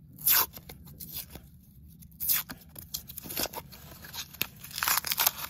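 Paper wrapper of a roll of half-dollar coins being torn open by hand: a series of short rips and crinkles, the loudest right near the start, more around the middle and a cluster near the end.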